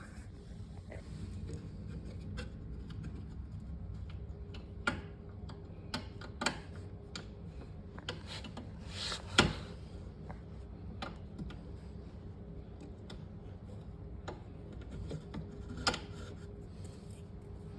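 Scattered light clicks and knocks of a refrigerator roller wheel assembly and its parts being handled and fitted by hand, the sharpest knock about nine seconds in, over a steady low hum.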